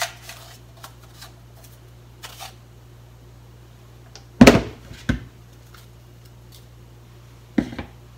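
Salt being spooned from a lidded plastic container onto cucumber chunks in a bowl: a few light clicks and scrapes of the small spoon, then two sharp knocks about halfway through, and another knock near the end as the plastic container is set down on the counter.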